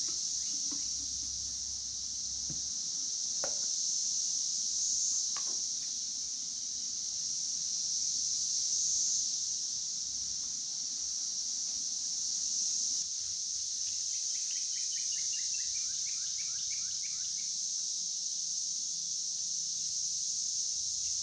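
Steady high-pitched chorus of insects, like crickets, running on without a break. A few light knocks come in the first several seconds. About fourteen seconds in, a bird gives a quick run of short chirps that falls in pitch.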